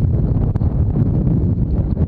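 Wind buffeting the microphone: a steady, loud, low rumble.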